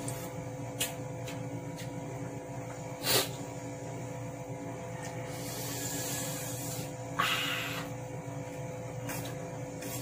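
A man huffing and blowing out hissing breaths through pursed lips, with a sniff and a few soft clicks, as his mouth burns from very spicy instant noodles. A steady hum runs underneath.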